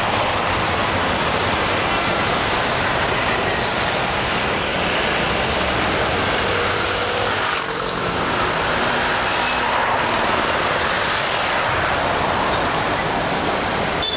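Steady noise of dense city road traffic, with car and bus engines running close by.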